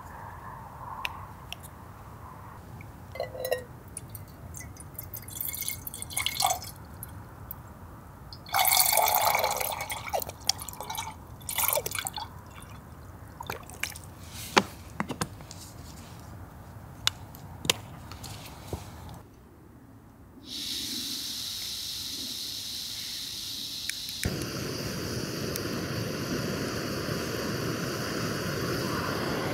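Scattered light clinks and taps of cookware, with a short pour of water about a third of the way in. A steady rushing hiss starts about two-thirds in and grows fuller a few seconds later.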